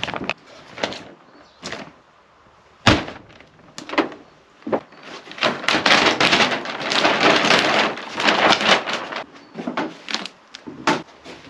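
A handful of sharp knocks and thuds, the loudest about three seconds in, with a few seconds of rough scraping and rustling in the middle, as of wood being handled and worked.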